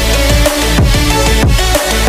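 Background music: an electronic dance track with heavy bass, a steady beat and repeated falling bass sweeps.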